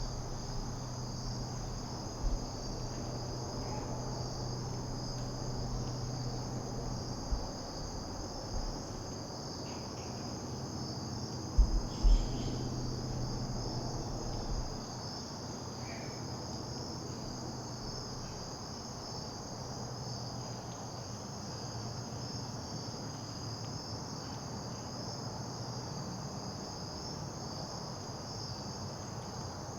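Steady chorus of crickets, one unbroken high trill. A few low thumps stand out, the loudest a pair close together about twelve seconds in.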